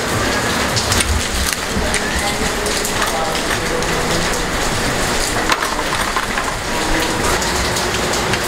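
Steady rain falling, an even hiss throughout, with scattered short clicks and crackles as plastic packaging on a bike frame is handled.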